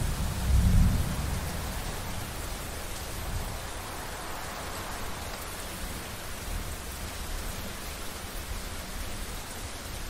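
Thunderstorm: a roll of thunder that peaks about a second in and rumbles away, over the steady hiss of falling rain.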